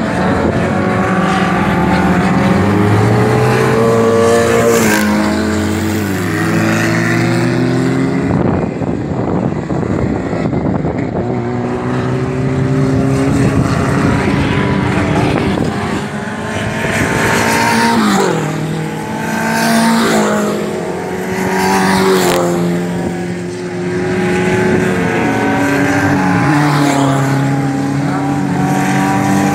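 Dirt-track race car engines at full throttle, the pitch climbing and dropping back again and again as the cars power round the track. About a third of the way in there is a stretch of rushing noise.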